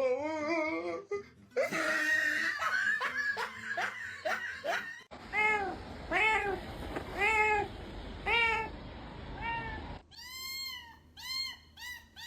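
Cats meowing: a run of five drawn-out meows, each rising and falling, about a second apart. Near the end come quicker, higher-pitched mews several to the second.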